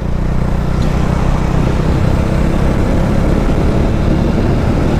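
Motorcycle engine running steadily while under way, the ride's noise holding even with no change in speed.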